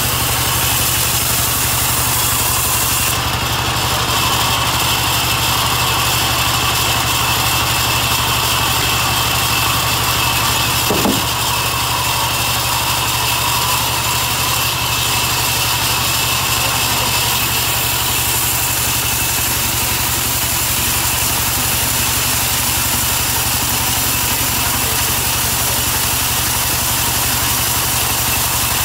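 Large sawmill band saw running steadily while ripping a timber slab lengthwise: a constant low machine hum with a steady high hiss over it. One short knock sounds about eleven seconds in.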